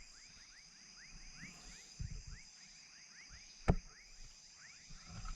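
Night chorus at a lagoon: crickets trilling steadily high up while frogs call in quick repeated short chirps, several a second. A single sharp click sounds partway through, with a few soft low thumps around it.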